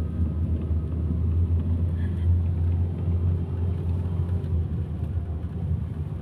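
Steady low rumble of a moving car, engine and tyres on the road, heard from inside the cabin.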